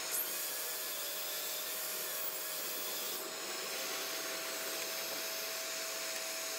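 Kobalt miter saw spinning up with a rising whine just after the start and cutting through 3/4-inch plywood, stopping about three seconds in. Underneath, a Wen 12-gallon dust collector runs with a steady hum and a single steady tone.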